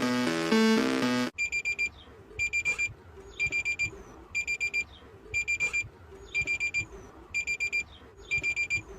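Electronic music cuts off about a second in. Then an electronic alarm beeps steadily, in bursts of four quick, high beeps about once a second.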